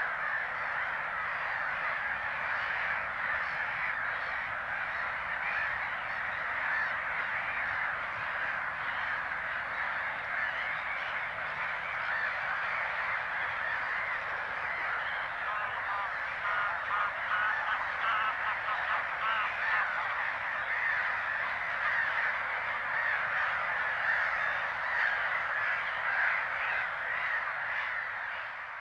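Dense, unbroken chorus of gulls calling at a breeding colony, Mediterranean gulls giving their courtship-display calls among them. A run of quick, repeated calls stands out about sixteen seconds in.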